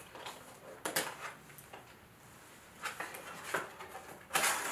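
A cardboard product box being opened by hand: short scrapes and rustles of the cardboard flaps and packing, with the loudest burst of rustling near the end.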